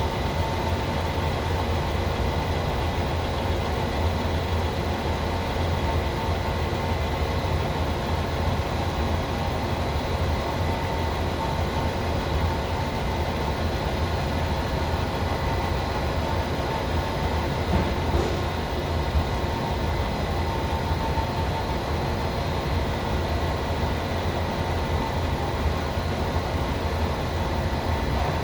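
FH680 machine spindle running steadily: a constant mechanical drone with a low rumble and several steady high whining tones. This is the spindle noise the owner is chasing, which he puts down to a suspected bearing.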